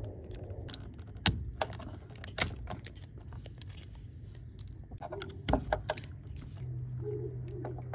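Electrical tape being stripped off a car door's wiring harness where it meets the rubber grommet, with the harness and grommet handled: irregular crackles and small clicks, with a few sharper snaps.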